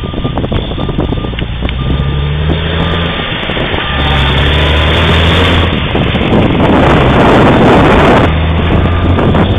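Heavy semi truck going by close: a low diesel engine drone under a loud rush of tyre and air noise that swells about four seconds in and drops off a little after eight seconds.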